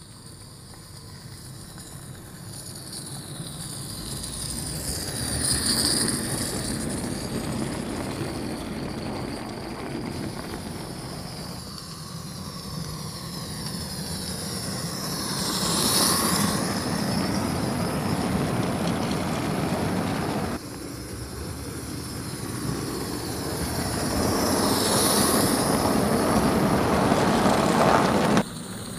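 Gauge 1 live-steam LSWR B4 tank locomotive running past on its track, growing louder as it comes close and fading as it goes by, three times, with sudden cuts between the passes.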